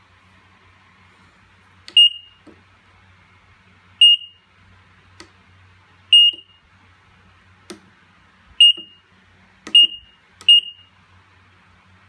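Electronic beeper of an eight-channel kitchen timer giving a short, high confirmation beep at each button press, each beep led by a faint click of the key. Six beeps at irregular spacing, the last three coming quicker, with two more key clicks that get no beep.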